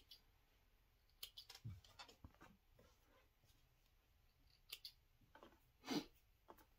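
Faint snips and clicks of thread snips trimming threads at a sewing machine: a few scattered short sounds, the loudest about six seconds in.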